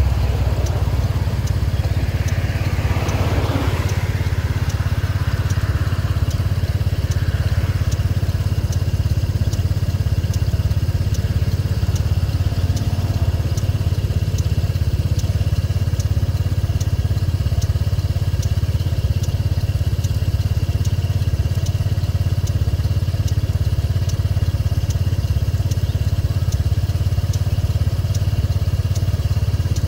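A steady low engine drone, even in level throughout.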